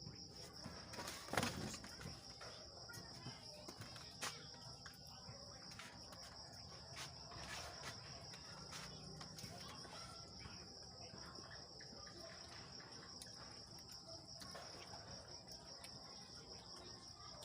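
Insects chirring steadily in a high, even trill. Two sharp knocks, the first about a second and a half in and the second around four seconds in, are the loudest moments.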